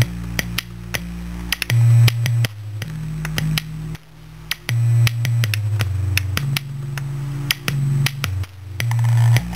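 Music with a heavy bass line played through a homemade 2.5-inch mini subwoofer, an old Sun server speaker driver with a weight glued to its cone, fed by a small amplifier. The bass notes step from pitch to pitch under a sharp, clicking beat.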